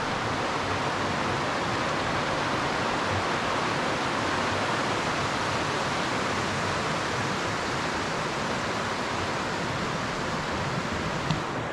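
Steady rushing of river water, an even hiss that holds unchanged throughout.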